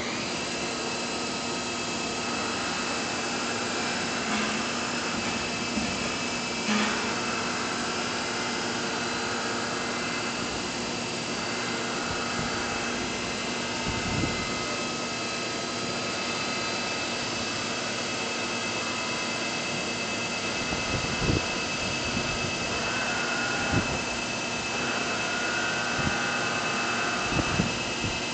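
Atrump CNC vertical machining center running, a steady machine whine and hum with several fixed tones. A few dull thumps come in the second half.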